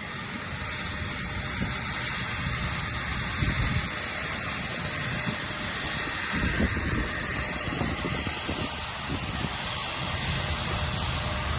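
Helicopter running: a steady hiss with a high whine, and irregular gusts of wind buffeting the microphone.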